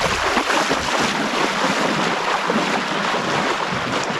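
Continuous splashing of lake water as a person wades quickly out from the shore, with wind noise on the microphone.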